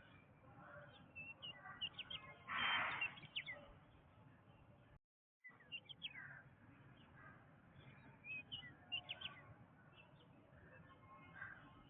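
Jungle bird chorus: many short chirps and whistles from several birds, with one louder harsh call about two and a half seconds in. The sound drops out completely for about half a second near the middle.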